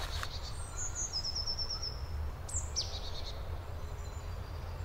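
Forest birds singing: a quick trill of about seven high notes a little past a second in, then a couple of sharp falling calls about two and a half seconds in, over a steady low rumble.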